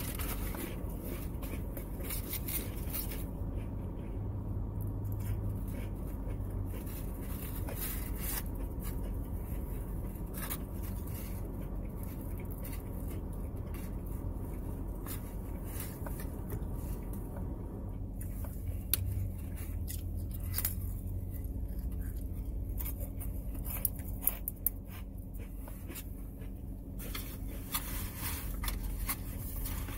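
Close-up mukbang eating sounds: chewing chicken salad on crackers, with scattered crunches, clicks and scrapes against a plastic takeout tray, over a steady low hum.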